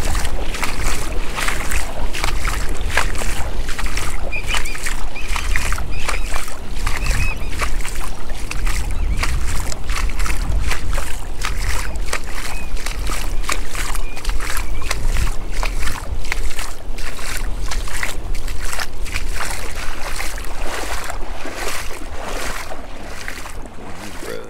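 Small waves slapping and sloshing against a kayak hull in quick irregular splashes, with wind rumbling on the microphone. Birds call faintly a few seconds in, and the sound fades near the end.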